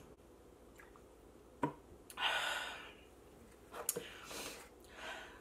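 A person drinking from a plastic water bottle. There is a sharp click about one and a half seconds in, then a long breathy exhale after the swallow, with a few softer clicks and breaths near the end.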